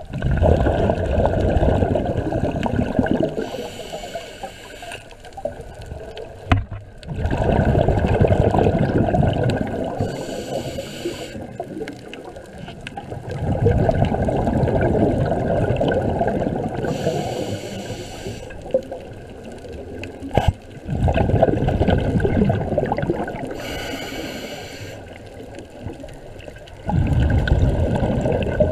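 Scuba divers breathing through regulators underwater: a loud bubbling exhalation about every six to seven seconds, each followed by a shorter, higher hiss of inhalation.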